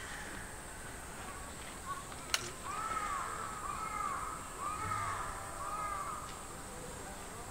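A crow cawing four times in an even series, about one caw a second, starting about three seconds in. A single sharp click comes just before.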